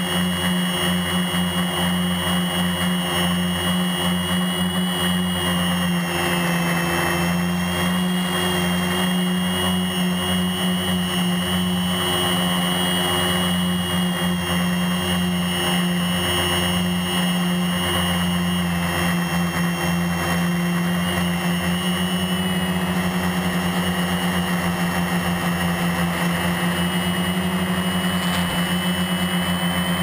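Rotor Concept HPQ1 quadcopter's electric motors and propellers running in flight: a steady loud hum with a high whine above it, the pitch shifting slightly now and then as the motors adjust.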